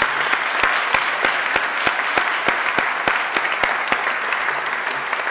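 Audience applauding in a large room, with one nearby pair of hands clapping sharply and evenly at about three claps a second that stands out over the crowd and stops about two thirds of the way through.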